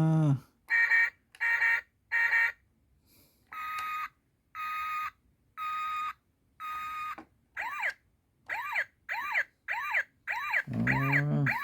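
Toy police car's electronic sound module playing: a few short electronic tones and four evenly spaced beeps, then a fast electronic siren of rising-and-falling whoops, about two a second. A brief voice-like sound comes at the very start and again near the end.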